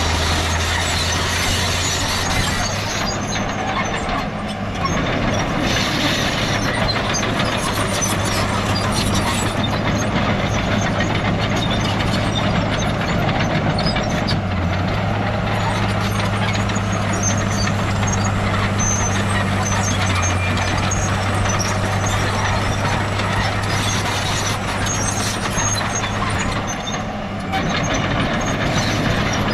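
Heavy diesel earthmoving machinery, a bulldozer working soil with dump trucks, running steadily with a low engine hum. The loudness dips briefly once, about four seconds in, and again near the end.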